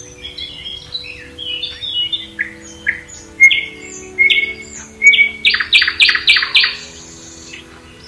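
Several songbirds singing with overlapping chirps and whistles. About five seconds in, one bird sings a loud rapid run of repeated notes.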